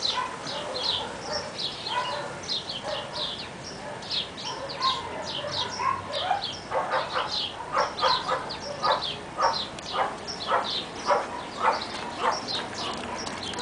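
Animal calls: many short, high chirps keep on throughout, and a run of sharper calls comes about twice a second in the middle.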